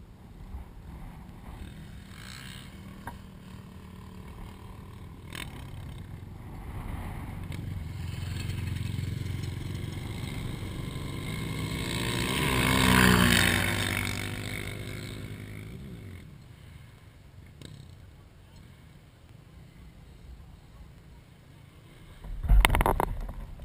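An ATV engine approaches, passes at its loudest about 13 s in with its pitch dropping, and fades away. A burst of loud thumping noise near the end.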